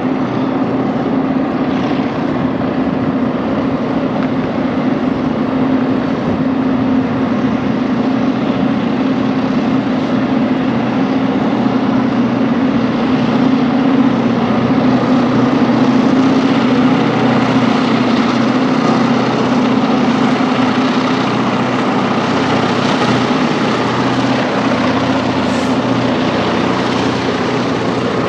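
Three non-turbocharged EMD GP38-2 diesel locomotives with 16-cylinder EMD 645 engines working flat out in run eight up a stiff grade, screaming, with a steady low drone. The sound swells as the lead units come closest, about halfway through.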